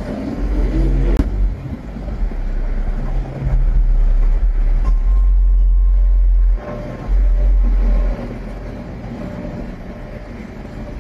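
Strong storm wind gusting across the microphone: a heavy low buffeting rumble that comes and goes in gusts, overloading from about four to eight seconds in, then easing to a lighter rush. A single sharp click about a second in.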